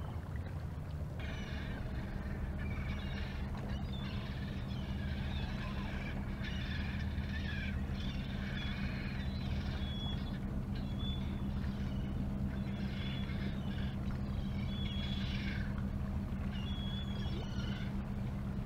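Steady low drone of a fishing boat's engine, with a constant pitched hum. From about a second in until near the end, a higher hissing sound comes and goes in stretches of a second or two, with short thin high notes in it.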